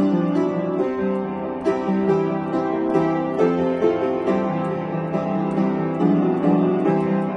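Solo piano playing a light arrangement of simple children's songs, a melody over steady low chords with notes struck every fraction of a second.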